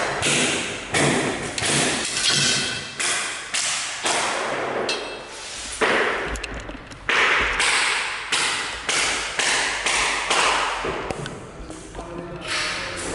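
Repeated hammer strikes, one every half second to a second with a couple of short pauses, some with a brief metallic ring. They come from fixing a door threshold bar to a hard tiled floor.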